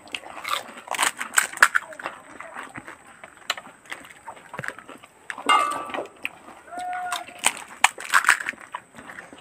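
Fuchka (pani puri) shells being cracked open, dipped in sour water and eaten in a hurry: many quick crisp cracks and crunches with wet sloshing and chewing.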